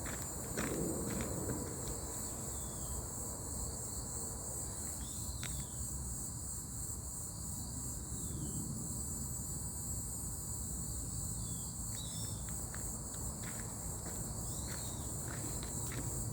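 Steady, high-pitched chirring of insects in the woods, with faint footsteps on a forest path now and then.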